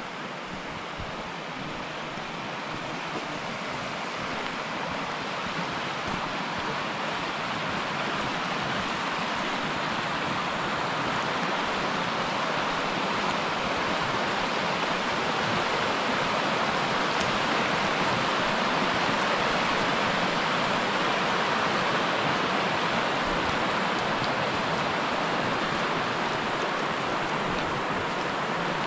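Mountain stream rushing over rocks in a steady, even rush that grows gradually louder over the first half and then holds.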